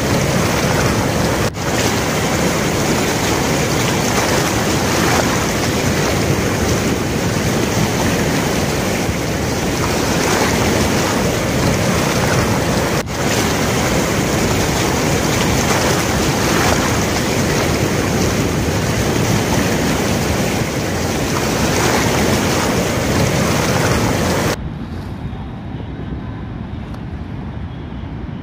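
Steady rushing noise of a fast-flowing river in flood, mixed with wind buffeting the phone microphone. Near the end it cuts abruptly to a quieter, duller rush.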